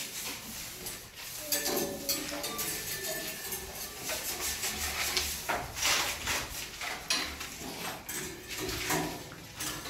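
Paint roller on a long pole being rolled over a wall with wet paint, with irregular clicks and knocks from the roller and handle.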